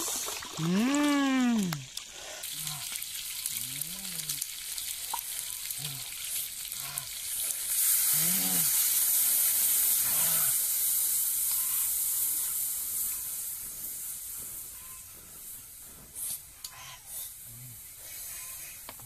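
Octopus and spice sauce sizzling in a pan over a wood fire, the sizzle swelling about eight seconds in and fading away over several seconds. A repeated rising-and-falling call sounds every couple of seconds, loudest near the start.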